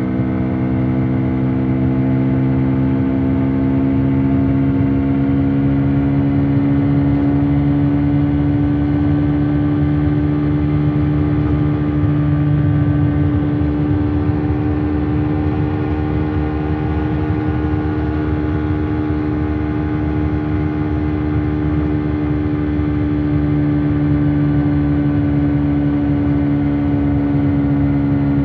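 Hero XPulse 200's single-cylinder four-stroke engine running through its stock exhaust, held steady, its pitch edging up over the first several seconds and then staying level.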